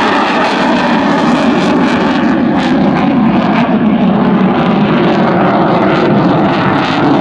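Eurofighter Typhoon in flight, its twin Eurojet EJ200 turbofans giving a loud, steady jet roar with a ragged crackle running through it.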